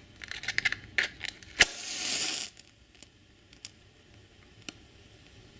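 A match being struck: a few scratchy clicks, a sharp strike about one and a half seconds in, then the hiss of the match head flaring for just under a second. After that only a few faint ticks.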